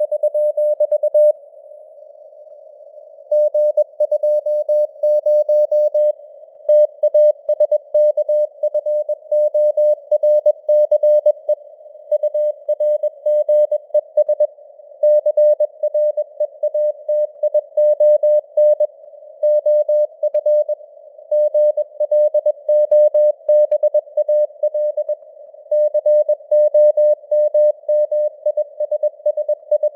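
Synthesized Morse code (CW) at about 21 words per minute: a mid-pitched beep keyed on and off in dots and dashes, with short gaps between words. Behind it runs a narrow band of hiss, simulating the noise of a radio receiver.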